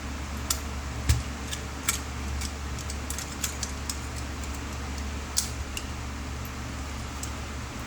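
Irregular small clicks and light taps of tools and small parts being handled during a repair, the sharpest about a second in, over a steady low hum.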